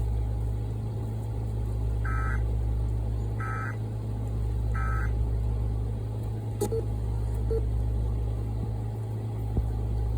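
Emergency Alert System end-of-message tones: three short data bursts about a second and a half apart, which close the broadcast alert, over a steady low hum. A single click follows a few seconds later.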